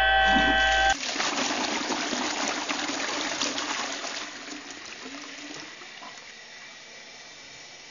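A held music chord ends about a second in, and a toilet flush takes over: a rush of water that fades slowly away.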